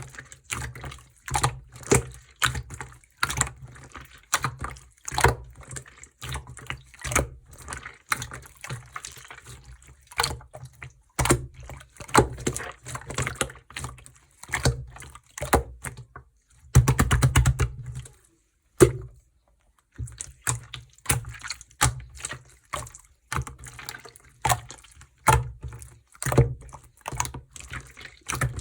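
Clear slime being squeezed and pressed by hand, giving short wet clicks and pops about one to two a second. A quick run of pops comes about two-thirds of the way through, followed by a brief pause.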